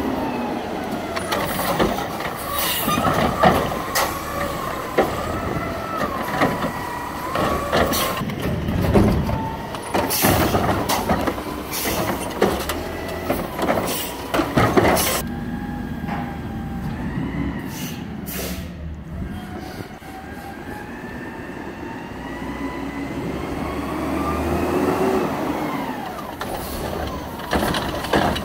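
McNeilus front-loader garbage truck on a Peterbilt chassis running, with its automated cart arm whining up and down as it lifts and empties a wheeled cart. The cart bangs and clatters repeatedly for several seconds while it is shaken out, followed by short hisses of air and the truck pulling ahead.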